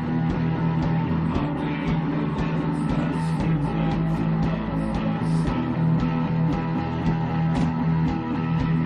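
Rock band playing live: electric guitars over a steady low bass line, with drums and regular cymbal strikes.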